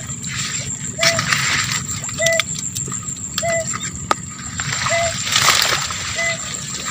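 Water hyacinth rustling and water splashing as hands and legs push through a marsh, with the loudest swell about five seconds in. Behind it a short steady-pitched call repeats about every second and a bit, over a faint steady high whine.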